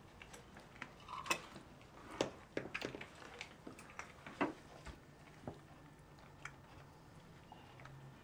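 Spoon clinking and knocking against a plate during a meal: a scatter of small sharp clicks over the first five seconds, then only a few faint ones.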